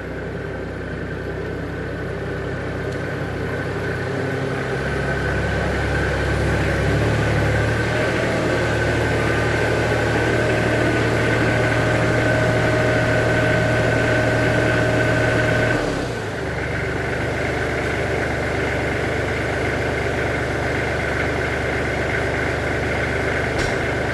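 Kubota L3430 tractor's four-cylinder diesel engine running steadily, being warmed up before an oil change. It gets louder about five seconds in, then its note shifts and drops a little about sixteen seconds in.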